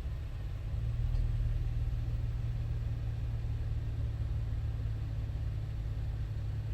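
A vehicle's engine idling: a steady low rumble, a little louder from about a second in.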